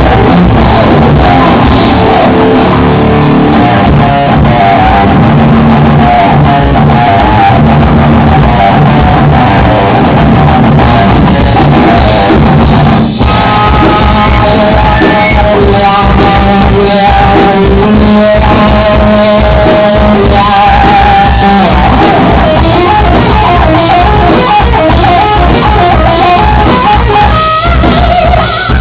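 Two-piece rock band jamming: guitar and drum kit playing a song with singing over it, loud and distorted in a low-quality recording with no treble.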